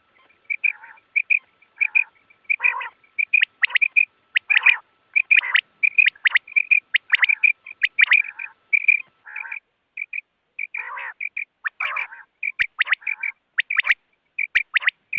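Quail calling: rapid runs of short, sharp notes, some with fuller, lower notes mixed in, coming in clusters with short pauses between them.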